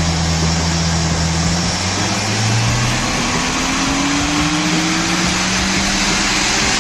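A car running with a loud, steady rush of road or wind noise. Beneath it the engine's low hum climbs slowly in pitch, as when accelerating.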